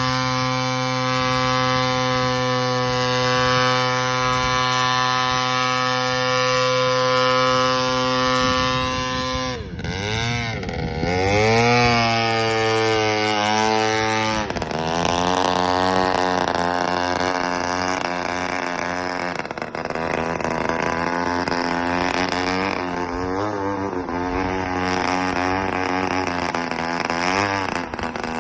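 Remote-control airboat's motor and propeller running at a steady pitch, then dropping and climbing sharply about ten seconds in. From about fifteen seconds on, the pitch rises and falls again and again as the throttle is worked.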